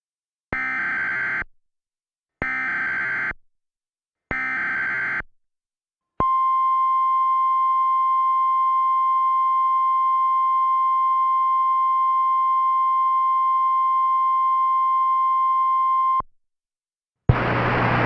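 Emergency Alert System activation: three short bursts of SAME header data tones about two seconds apart, then the steady single-tone NOAA Weather Radio alert tone held for about ten seconds and cut off abruptly.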